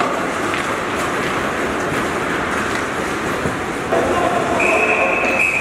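Ice hockey game on the rink: skates scraping and carving on the ice with a few knocks from sticks and puck, then a shout about four seconds in. Near the end a referee's whistle blows one long, steady, high note to stop play.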